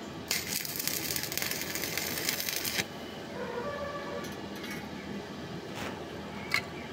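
Stick (arc) welding on a metal pipe joint: the electrode arc crackles and hisses for about two and a half seconds, then cuts off. Two sharp clicks near the end.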